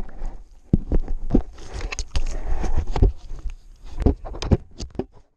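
A Shiba Inu chewing on a GoPro Hero4 Session camera as it records: irregular clicks and knocks of teeth on the camera housing, with bumps and rustling as the camera is mouthed and jostled. The sound cuts off suddenly near the end.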